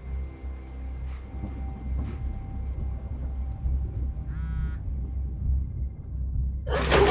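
A low, steady rumbling drone of film sound design with faint sustained tones over it. About halfway through comes a short buzzing electronic alert, like a phone notification. Near the end a loud rushing noise swells in.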